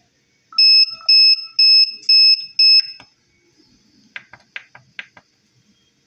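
Electronic buzzer on an Arduino-based kitchen timer beeping five times, a steady high tone about twice a second, signalling that the measured temperature has reached the 121 °F heat set point. About a second later come a few light clicks from the rotary encoder knob being operated.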